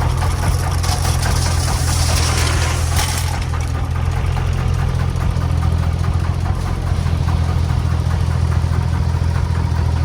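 Diesel engine running steadily at a low, even idle, with a rushing hiss for about two seconds, starting about a second in.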